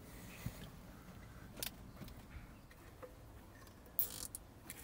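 Faint handling noise of audio cables being pulled and tucked behind the car's dashboard trim: a few short rustles and scrapes, a brief one about a second and a half in and a longer, louder rustle about four seconds in.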